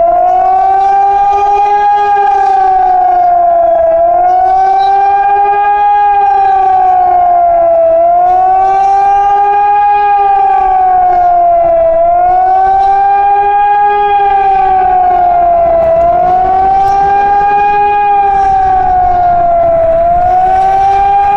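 Hörmann ECN electric warning siren sounding the attack signal: a loud, steady wail whose pitch rises and falls smoothly, dipping about every four seconds.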